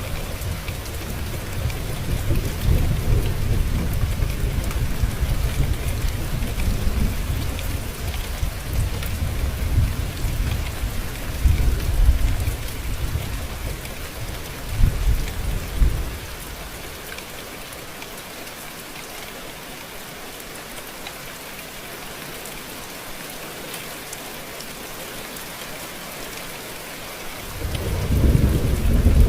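Steady rain with thunder. A long low rumble of thunder rolls through the first half and dies away about halfway in, leaving only the rain, and the thunder rolls in again near the end.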